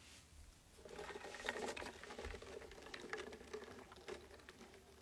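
A person sipping an iced drink through a straw from a plastic cup: a faint, crackly slurping that starts about a second in.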